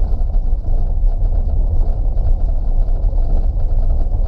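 Steady low rumble of a van's engine and tyres heard from inside the cab as it drives slowly along a rutted dirt track.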